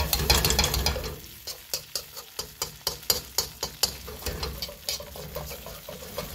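Tofu and sauce sizzling in a cast iron wok while a metal slotted spatula stirs and scrapes it. The spatula strikes the pan in quick strokes, about three or four a second, and slows near the end.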